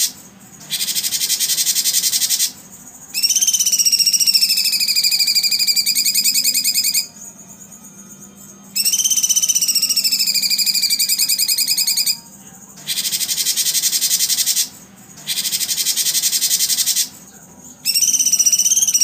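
Recorded songbird calls played on repeat, of the kind used to train contest songbirds. Loud, dry, buzzy trills of about two seconds alternate with long whistled trills that fall in pitch, each lasting three to four seconds. The phrases are separated by brief pauses.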